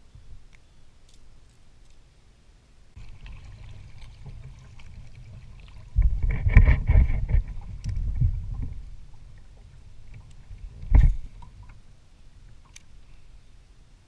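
A kayak on choppy open water: wind buffeting the microphone and water sloshing against the hull, loudest about six to nine seconds in, with one sharp knock against the hull about eleven seconds in.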